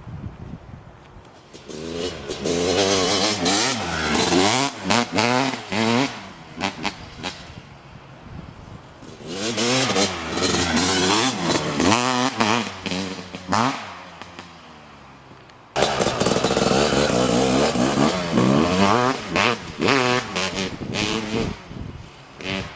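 Kawasaki KX250 single-cylinder two-stroke engine through an FMF Gnarly expansion-chamber pipe, revved in quick repeated blips whose pitch rises and falls, in three bouts with lower idling between them. The sound jumps suddenly louder about sixteen seconds in.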